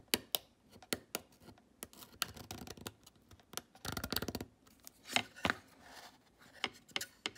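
A wooden craft stick scraping and picking at cured, hard Hysol 9460 epoxy on a wood shim: a string of sharp clicks and scratches, with a fast rattling run of them about four seconds in.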